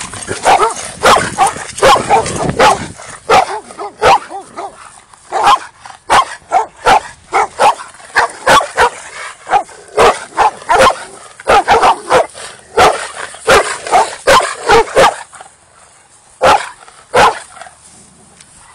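Dogs barking hostilely at someone across a fence: quick, overlapping barks at first, then a long run of single barks roughly every half second to a second, tailing off to two last barks near the end.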